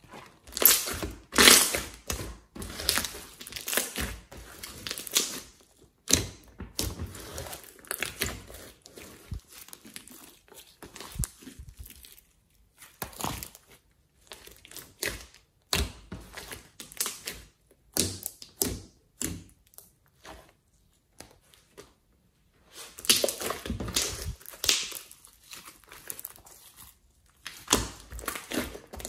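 Hands stretching, folding and pressing a large glossy slime, making irregular wet, sticky squelches and clicks in uneven clusters, with a silent pause of a couple of seconds about two-thirds through.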